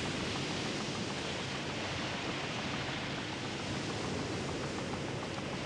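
Steady rushing noise of wind and a rough sea, with the waves surging and breaking.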